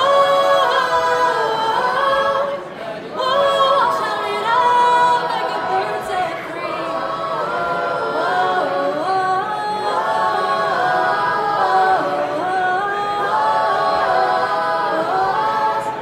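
Girls' a cappella choir singing in close harmony, a solo voice leading over the group's backing parts, with a short breath between phrases about two and a half seconds in.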